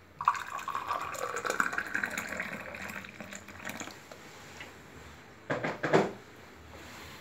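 Boiled water poured from a stainless-steel kettle into a drinking glass, the pitch of the pour rising as the glass fills, followed by a couple of short knocks near the end.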